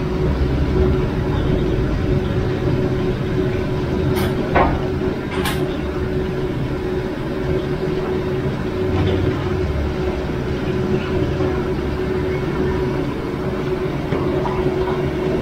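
A gas wok burner running under a large wok of stir-fry: a steady rushing noise with a low hum, and a few sharp clicks about four to five and a half seconds in.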